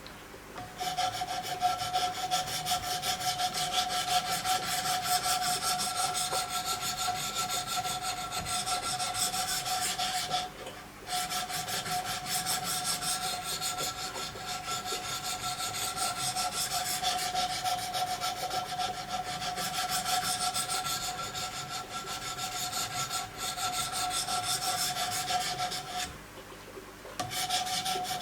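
Wicked Edge guided sharpener's diamond stones stroked rapidly along a fixed-blade knife edge, a continuous scraping with a steady ringing tone through it. The strokes pause briefly about ten seconds in and again near the end.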